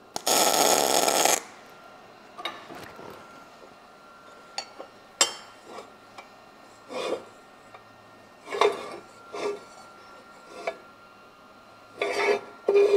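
A welding arc runs for about a second as a tack weld joins a steel tube to a steel base plate. After it come scattered clinks and knocks of steel parts being handled.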